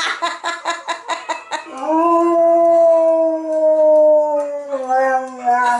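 Czechoslovakian wolfdog howling: a quick run of short yelps, about eight a second, then one long, steady howl that sinks slightly in pitch and breaks into wavering notes near the end.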